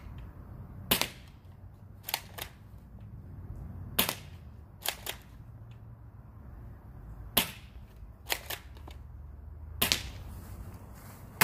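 Airsoft gun firing single shots: a string of sharp snaps a second or two apart, some followed by a fainter click.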